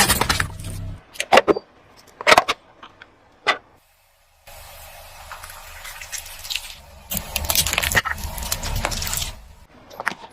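A car tyre rolling over and crushing objects: a few sharp cracks and crunches, then a steady crackling, squishing crush with a low rumble underneath, loudest near the end.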